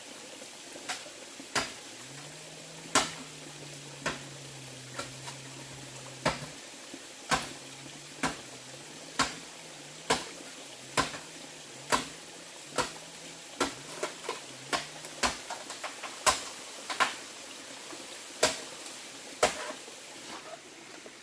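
Sharp, even strikes of a hand tool, about one a second, in a steady work rhythm, with a faint low hum through the middle part.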